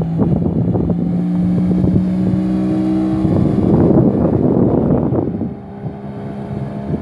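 Small motorboat's engine running at speed as the boat passes, with wind buffeting the microphone. The engine sound drops off about five and a half seconds in as the boat draws away.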